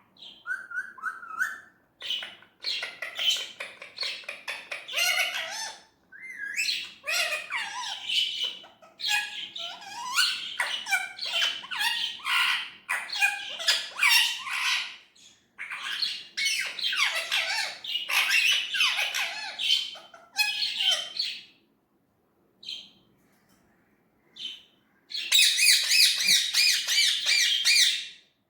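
Indian ringneck parakeet chattering in rapid runs of high, warbling calls broken by short pauses, then a continuous squawk lasting about three seconds near the end.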